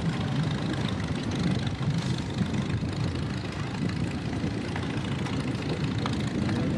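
1953 John Deere Model 60's two-cylinder engine running at parade pace, a steady low rumble as it pulls a train of barrel cars.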